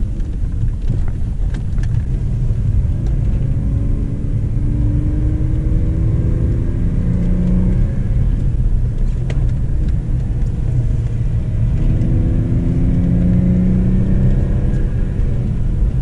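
BMW E46 320ci's 2.2-litre M54B22 inline-six, fully decatted with an M52 exhaust, heard from inside the cabin while driving. A low exhaust rumble runs throughout, and the engine note rises twice under acceleration: about four to eight seconds in, and again from about twelve to fifteen seconds.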